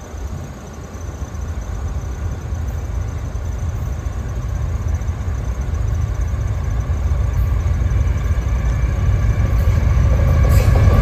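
Diesel locomotive at the head of a CSX freight train approaching on the line, its low engine and rail rumble growing steadily louder as it nears. A few steady higher tones come in near the end.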